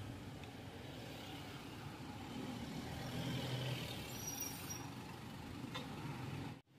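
Street traffic: car engines running with a low hum, and a vehicle passing close by that gets louder about three seconds in. A brief high squeak comes about four and a half seconds in, and the sound cuts off suddenly near the end.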